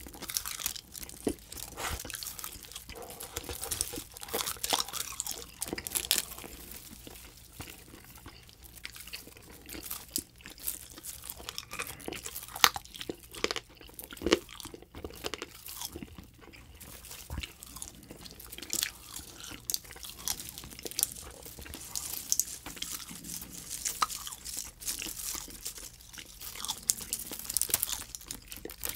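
Close-miked chewing of clear edible tape: irregular crinkly crunches and mouth clicks as the strips are bitten and sucked in.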